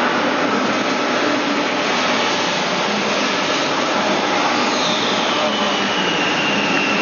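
Steady, loud machine noise with no clear rhythm. About five seconds in, a high whine comes in and slowly falls in pitch.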